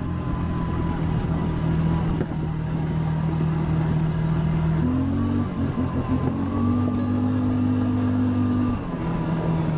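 ATV engine running steadily while riding along a trail. The engine note shifts up about halfway through and drops back near the end as the throttle changes.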